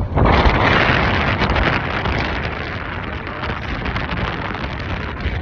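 Wind rushing over the microphone over the low rumble of a car on the move. It swells sharply at the start, then slowly eases off.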